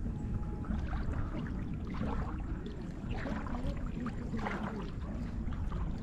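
Water lapping and trickling in small irregular splashes around a freshly sunk cast net, over a low steady rumble.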